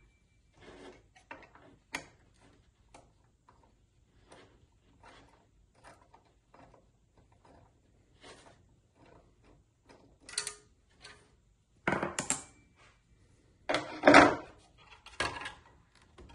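Light clicks and taps of a T30 Torx driver and hands working the screws of a benchtop planer's cutter-head cover, then several louder clunks and rattles in the last few seconds as the cover is worked loose and pulled off.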